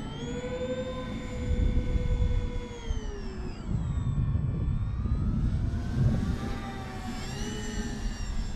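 Twin brushless electric motors and propellers of an RC Avios Grumman HU-16 Albatross flying boat in flight, a whine that drops in pitch a few seconds in and climbs again near the end, over a low rumbling noise.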